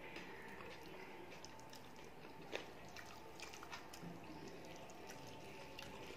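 Soft wet squishing and small clicks of fingers mashing and mixing rice with dal and curry on a metal plate, along with mouth sounds of chewing. One sharper click about two and a half seconds in.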